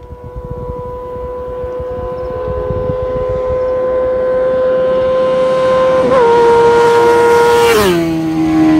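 Honda CBR 600F's inline-four engine held at high revs as the motorcycle approaches at speed, one steady note growing steadily louder. About eight seconds in, the pitch drops sharply as it passes by.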